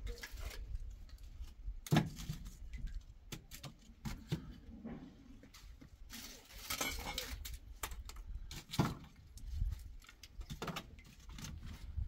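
Sticks of firewood handled and shifted in a hearth: scattered knocks and clicks of wood, the loudest about two seconds in, and a short rustle around seven seconds.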